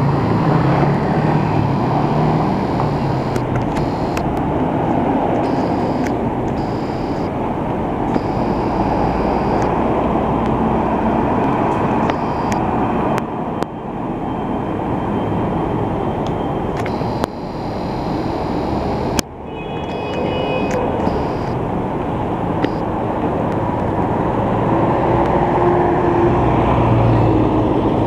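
Busy city street traffic: engines of trucks, cars and scooters passing, including a yellow garbage compactor truck driving by.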